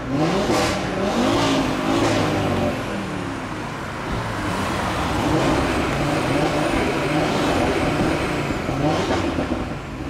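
Audi RS3 Sportback 8V's 2.5-litre turbocharged five-cylinder, through an Audi Sport exhaust, revved again and again, its pitch rising and falling with each blip, with a few sharp exhaust pops.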